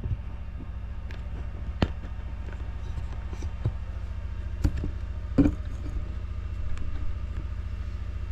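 Handling noises while a camera is set up: a few sharp clicks and knocks, the loudest about five and a half seconds in, over a steady low hum.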